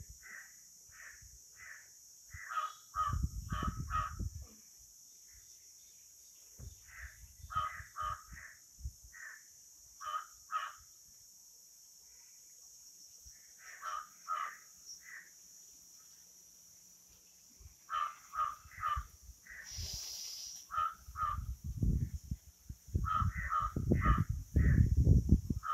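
Crows cawing in repeated quick runs of three to five caws each. Low rumbling noise swells in and out, loudest near the end, over a steady high hiss.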